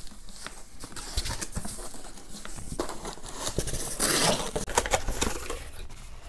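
Cardboard box flaps being pulled open and folded back: irregular scraping and rubbing of cardboard with short knocks, the loudest scrape about four seconds in.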